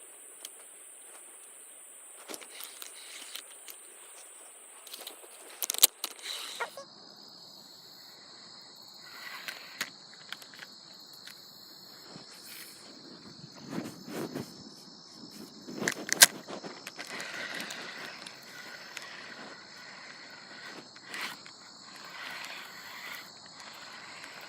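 Insects trilling steadily and high-pitched outdoors; about six seconds in the buzz changes abruptly to a lower pitch. A few sharp knocks or clicks stand out above it, the loudest about six and sixteen seconds in.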